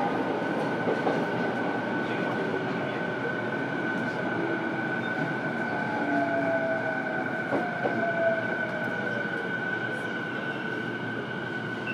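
Running sound of a JR East E233-7000 series electric train, heard from inside a motor car. There is a continuous rumble of wheels on rail with a steady high whine from the Mitsubishi IGBT VVVF traction equipment.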